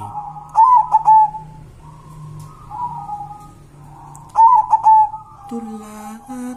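Zebra dove (perkutut) cooing in two loud bursts about four seconds apart, each a quick run of high, clipped notes, with softer coos between. A man's singing voice comes in near the end.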